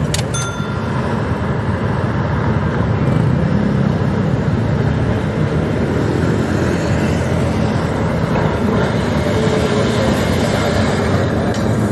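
Street traffic with cars passing, and an old Milan 'Ventotto' tram rumbling along its rails as it draws near.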